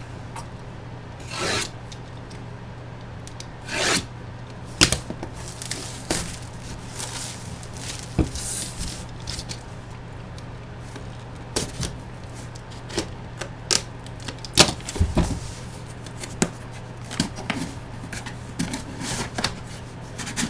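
A cardboard collectible box and its packaging are handled and opened by hand. There are two longer rubbing swishes near the start, then a run of sharp clicks, taps and short scrapes, all over a steady low electrical hum.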